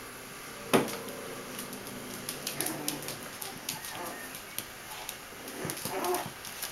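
Bichon Frisé puppies play-fighting. One sharp yelp comes about a second in, then short whiny yips and small clicks.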